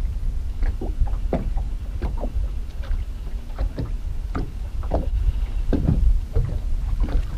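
Wind rumbling on the microphone, with small waves slapping irregularly against a fishing boat's hull, two or three light slaps a second.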